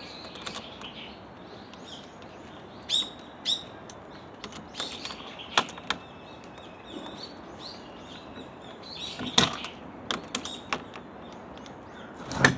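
Small birds chirping in short, scattered calls over a steady outdoor hiss, with a few sharp knocks or rustles, the loudest about nine seconds in and near the end.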